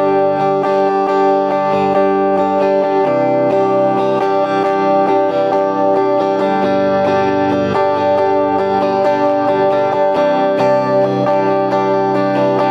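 JCraft S1H electric guitar played clean on its neck-and-middle pickup combination, plugged straight into a sound card with no amplifier or pedals. A continuous run of picked notes and chords rings on.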